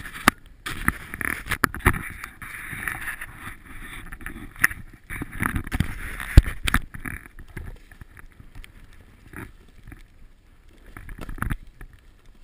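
Snowboard sliding and scraping through snow, with many knocks and thumps on the camera; the loudest thump comes about six seconds in, and the scraping dies down after about seven seconds.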